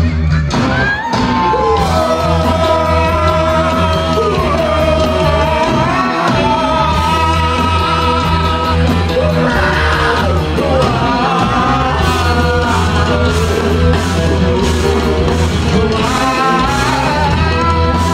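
Live rock band playing loud, with electric guitars, bass, drums and a sung vocal line.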